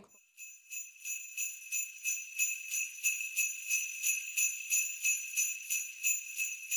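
Sleigh bells shaken in a steady, even beat, about three shakes a second, with a bright metallic jingle.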